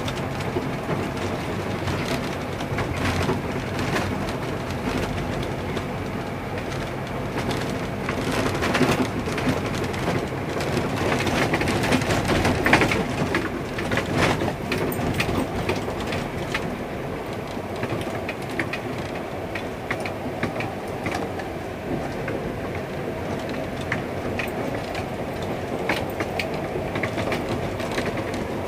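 Vehicle driving over a rough, heavily asphalt-patched road, heard from inside the cabin: steady running and tyre noise with many irregular knocks and rattles as the wheels cross the patches, a little louder midway.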